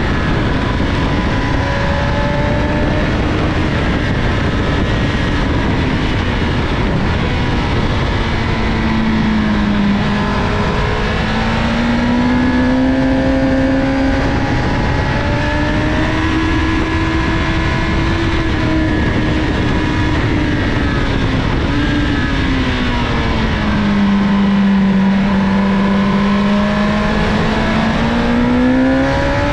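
A 2007 Honda CBR1000RR Fireblade's inline-four engine at high revs on a track lap, its pitch dipping and climbing as the throttle is rolled off and on through corners, with a steady rush of wind and road noise. The revs drop about a third of the way in and again toward the end, then climb once more.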